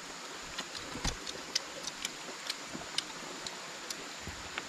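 Irregular small clicks and crackles, a couple a second, over a steady hiss, with one dull knock about a second in.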